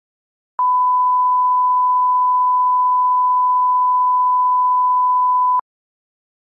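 A 1 kHz line-up test tone, the reference tone that goes with colour bars for setting audio levels. It is a single steady pure tone that starts about half a second in and cuts off abruptly after about five seconds.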